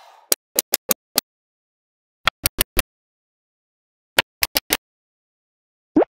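Small neodymium magnetic balls clicking sharply against each other as blocks of them are snapped together. The clicks come in three quick runs of four or five, with silence between.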